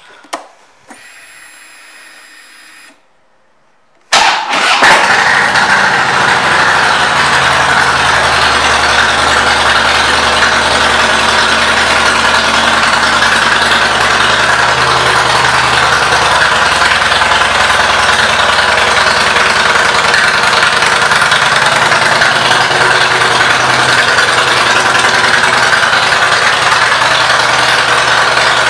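2011 Harley-Davidson Softail Deluxe's Twin Cam 96B V-twin with Vance & Hines pipes. A faint whine lasts a couple of seconds, then the engine starts about four seconds in and settles into a steady idle.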